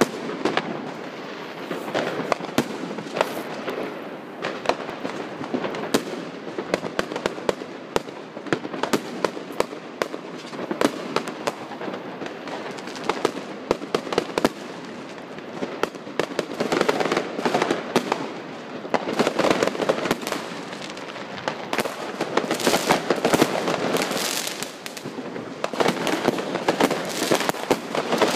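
Many fireworks going off at once: a continuous run of sharp bangs and pops over constant crackling, with heavier barrages in the second half.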